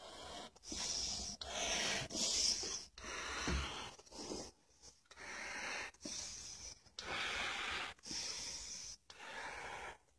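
A person breathing heavily and close to the microphone, in and out with a rhythmic hiss. Each breath lasts about a second, with short pauses between them.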